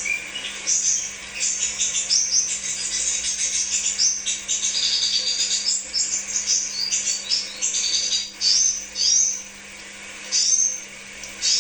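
Crimson sunbird (kolibri sepah raja) singing: a rapid, high-pitched twittering of chirps and short falling notes, pausing briefly a couple of times in the second half.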